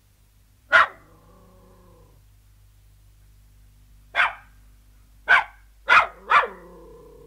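Terrier barking: one sharp bark about a second in, then four sharp barks in quick succession from about four seconds in, the last drawn out into a held note.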